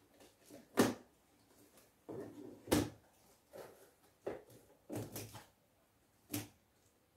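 A cardboard box being opened by hand: packing tape and plastic wrapping rustling and crinkling in short stretches, with four sharp knocks or snaps spread through.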